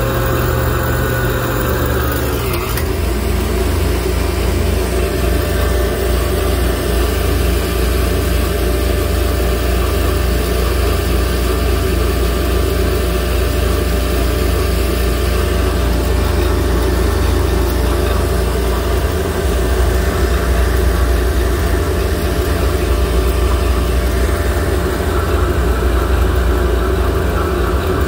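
High-output J2Fab 300 A alternator spinning on a bench test stand under heavy electrical load, about 180 to 220 amps, with a steady low drone from the drive. A higher whine at the start dips slightly and drops away about two and a half seconds in.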